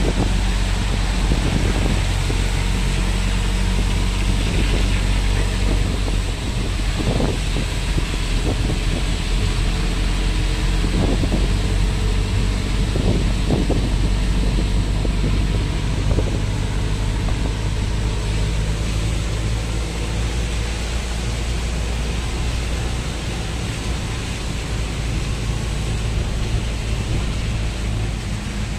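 Auto-rickshaw's small engine running steadily while driving, heard from inside the open cab, with wind and the hiss of tyres on the wet road, and a few brief knocks about a third of the way in.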